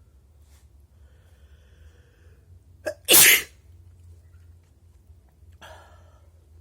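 A person's explosive, wet sneeze: a faint drawn-in breath, a sharp catch just before three seconds in, then one loud sneeze lasting about half a second. A quieter short breath follows near the end.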